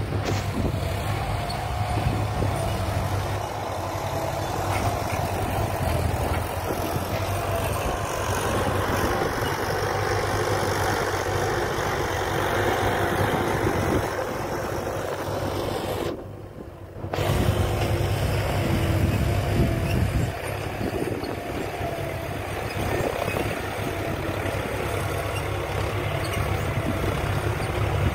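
Diesel engines of a Mahindra 475 DI and a John Deere 5045D tractor running steadily under load while pulling cultivators. The sound cuts out for about a second just past the middle.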